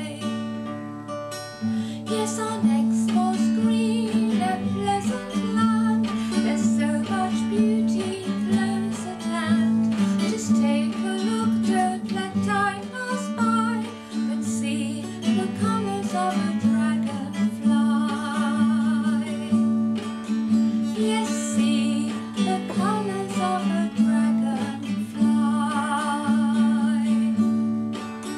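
A woman singing, accompanying herself on a classical acoustic guitar with plucked and strummed chords.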